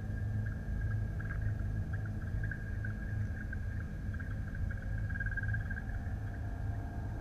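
Underwater sound picked up through a submerged camera: a steady low rumble with a thin high whine that flutters now and then.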